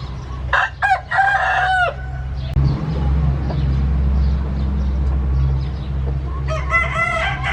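Gamefowl rooster crowing twice: a full crow about half a second in, and another starting near the end. A steady low hum runs underneath.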